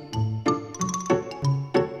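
Light, bouncy background music with a steady beat: short bass notes alternating in pitch under bright, chiming notes, about three notes a second.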